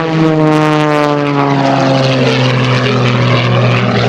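Propeller drone of an MXS-RH aerobatic monoplane in flight. It is loud and steady, and its pitch falls smoothly throughout, as heard when the plane passes and moves away.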